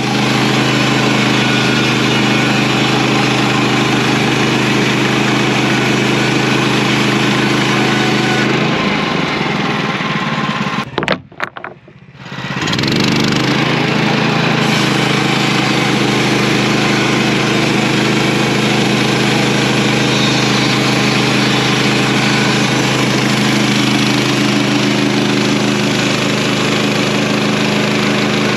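Sawmill engine running steadily while the blade saws through a log. The sound drops out briefly about eleven seconds in, then comes back.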